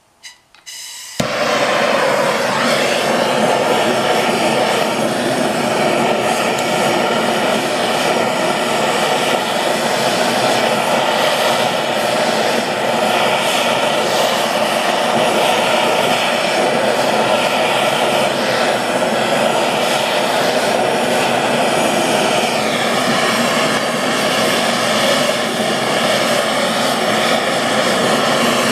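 Handheld gas torch burning with a steady roaring hiss, heating an aluminium square-tube joint for brazing with HTS-735-11 rod. It comes on suddenly about a second in.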